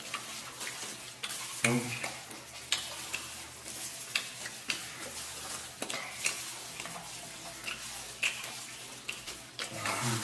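Wet, crackly mukbang eating sounds: gloved hands tear tender stewed beef rib meat from the bone and dip it in chili sauce while the eaters chew, with many small sharp clicks and squelches. A short vocal sound comes about two seconds in.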